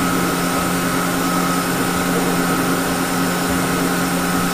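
Kitamura CNC mill from 1994, powered up and giving a steady hum: two low steady tones with a fainter higher tone above them, unchanging throughout.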